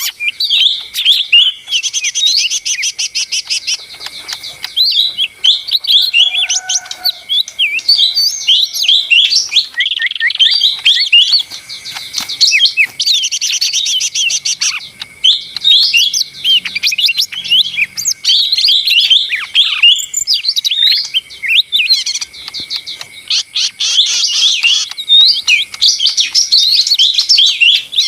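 Lesser green leafbird (cucak ijo mini) singing a busy, nonstop song of rapid chirps, slurred whistles and fast trills.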